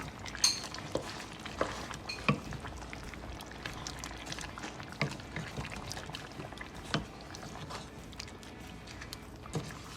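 A spoon stirring chopped potatoes and carrots into a pot of simmering curry chicken: wet stirring and bubbling, with scattered knocks of the spoon against the pot, the sharpest about half a second in and a few more spread through.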